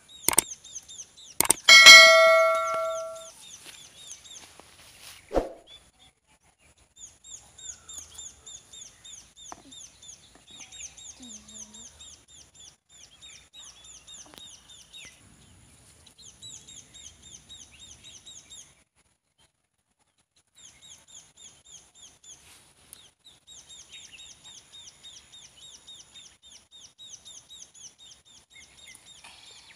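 A subscribe-button sound effect: two clicks followed by a bright bell-like ding that rings for about a second and a half. Then a bird chirping fast and high, about four short falling chirps a second, in long runs with a short pause midway.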